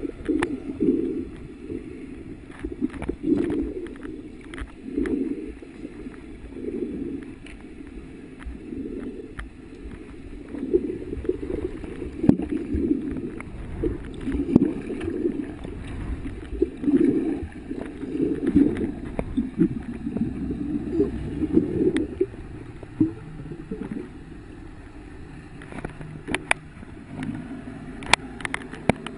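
Muffled underwater water noise picked up by a camera held below the surface: gurgling and rushing that surges every second or two, with scattered small clicks.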